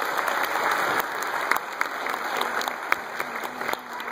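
Audience applauding, dense at first and gradually thinning out.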